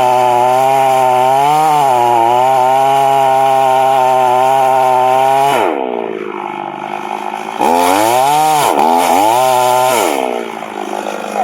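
Chainsaw running at full throttle, dropping to idle a little past halfway, revving up again for about two seconds with a couple of dips, then settling back to idle near the end.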